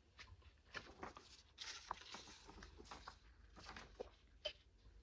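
Faint rustling with scattered light clicks and taps from things being handled on a desk.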